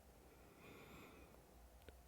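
Near silence: room tone with a low steady hum, and one faint, brief sound about half a second in.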